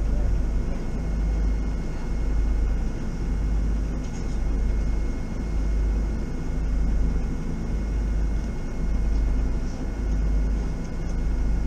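Wind buffeting the microphone in uneven gusts on the open deck of the car ferry MS Chi-Cheemaun under way, over a steady hum from the ship's machinery.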